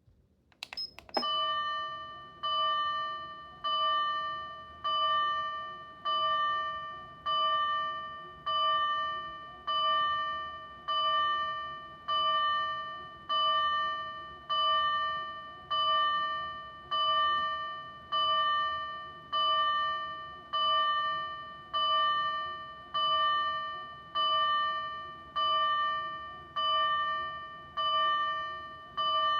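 Osaka Siren TWS-5101 siren amplifier sounding its electronic fire-bell tone in low-speed mode: one bell strike about every 1.2 seconds, each ringing and dying away, after a short click as it switches on about a second in.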